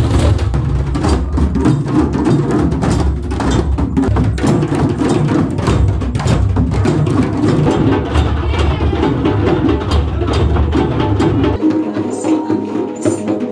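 A group playing djembes together, a dense rhythm of hand strikes on the skins with a deep bass from the drums. Near the end it cuts to a steel handpan played by hand, its notes ringing.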